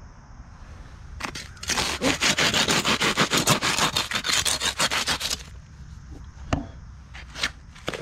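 Handsaw cutting through cured expanding polyurethane foam in fast back-and-forth strokes, from about a second and a half in until about five and a half seconds, followed by a couple of short sharp snaps.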